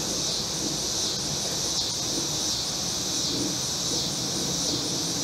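A steady, high-pitched insect chorus of crickets and similar singing insects, running on without a break, over a faint low background hum.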